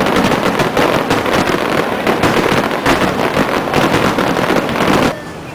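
Dense barrage of aerial fireworks, many bursts and crackles a second close together, cutting off suddenly about five seconds in.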